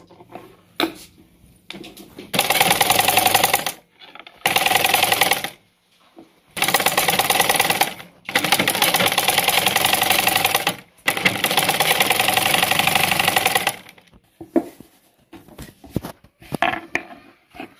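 Black domestic straight-stitch sewing machine stitching cotton fabric in five runs of a second or two each, with short pauses between. The needle clatters in a fast, even rhythm. The machine stops a little before the end, leaving only a few light clicks.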